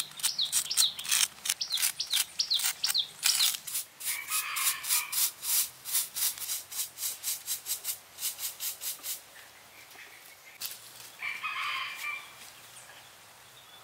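Scratching strokes of a stick and then a stiff hand brush over fresh cement paving. The strokes are fast at first, then come about three a second, and stop about nine seconds in. A rooster crows twice in the background, and small birds chirp near the start.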